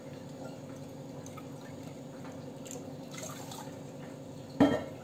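Water poured from a small glass bowl into sugar in a pan, with light splashing and dripping over a steady low hum. A brief louder sound comes near the end.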